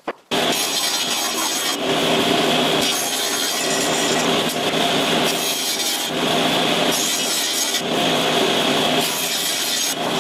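Table saw running and cutting pine boards in repeated passes, the noise swelling as each board goes through the blade.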